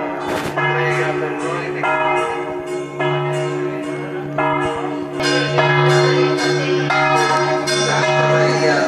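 Church bells ringing a festive peal, struck about twice a second, with the tones of each strike ringing on into the next over a steady low hum.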